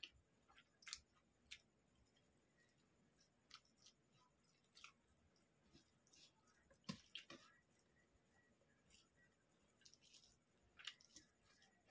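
Faint, wet eating sounds: scattered soft clicks and smacks of chewing, and fingers squishing and mixing rice by hand, the loudest click about seven seconds in.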